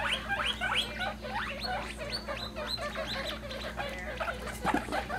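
Guinea pigs squeaking: a run of short, rising squeaks, several a second, with a brief knock near the end.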